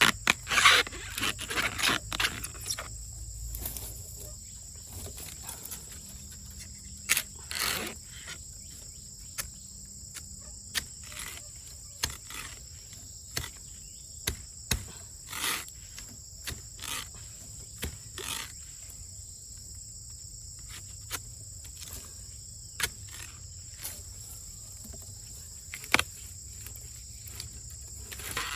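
Insects chirring steadily at a high pitch, with short sharp snaps and knocks at irregular intervals over it, most often in the first few seconds.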